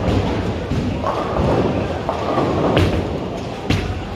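Bowling alley din: a steady low rumble of balls rolling on the lanes, broken by sharp thuds and knocks of balls and pins. Two loud knocks stand out in the last second and a half.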